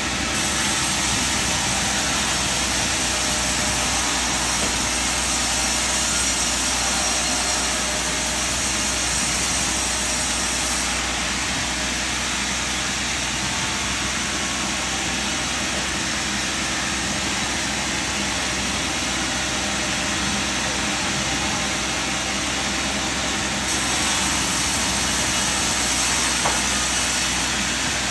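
Sawmill machinery running with a steady, dense mechanical noise. It gets louder, with a brighter hiss, for the first ten seconds or so and again near the end.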